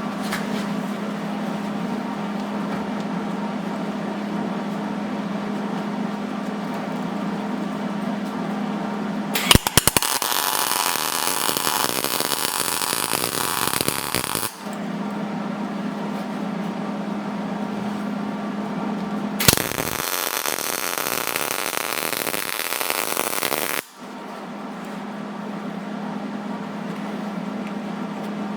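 Arc welding on a broken, rusted engine head bolt, heard as two bursts of steady crackling buzz, the first about five seconds long and the second about four. A steady low hum runs before, between and after them.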